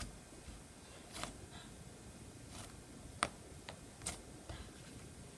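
Slime being handled, making a few faint scattered clicks and small pops, the sharpest about three seconds in.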